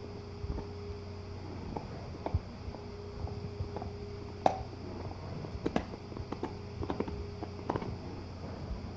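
Golden retriever gnawing on a deer antler: irregular clicks and scrapes of teeth on the hard antler, the loudest about four and a half seconds in.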